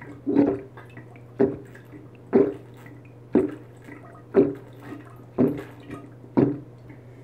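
A person gulping orange juice straight from a large plastic bottle: one loud swallow about every second, seven in a row.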